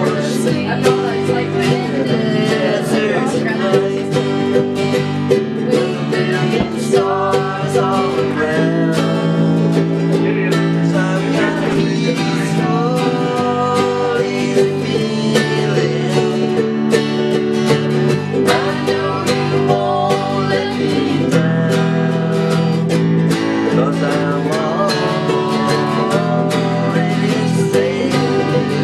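Acoustic guitars strumming chords through a steady tune, with a wavering melody line carried over them.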